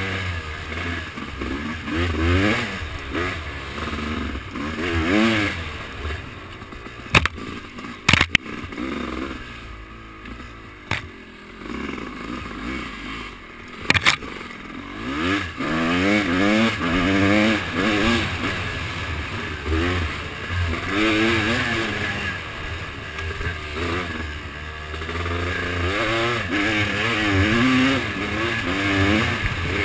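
Off-road vehicle engine on a trail, revving up and down, its pitch rising and falling every second or so. A few sharp knocks or clatters come through in the middle stretch.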